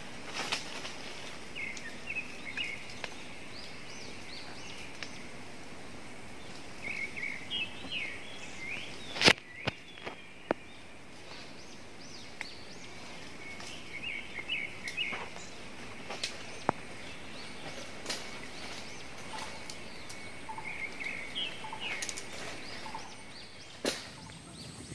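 Forest background with a bird calling in short clusters of chirps every several seconds, and scattered sharp clicks and knocks, the loudest about nine seconds in.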